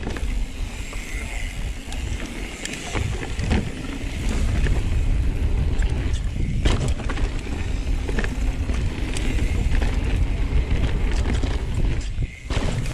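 Mountain bike rolling fast down a packed-dirt trail: a steady low rumble of tyre and wind noise with scattered sharp clicks and rattles from the bike over bumps. The rumble drops away briefly near the end.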